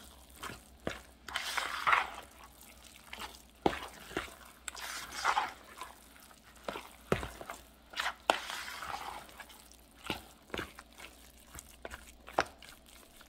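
Metal spoon stirring a wet cornbread dressing mixture in a bowl: irregular soft squelches and scrapes, with occasional sharp clicks of the spoon against the bowl.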